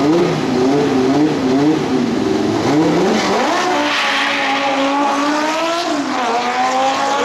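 Drag car's engine revving up and down repeatedly on the start line, then launching and accelerating hard down the strip, its pitch climbing, dropping at a gear change about six seconds in, and climbing again.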